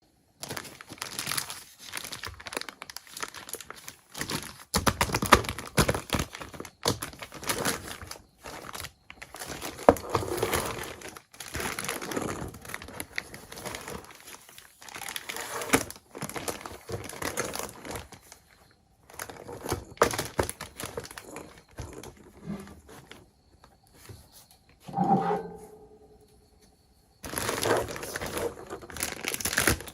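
Packaging being crinkled, handled and torn open while a miniature toy kitchen set is unboxed: irregular crackling rustles throughout, with a short pitched squeak about 25 seconds in and a brief lull just after.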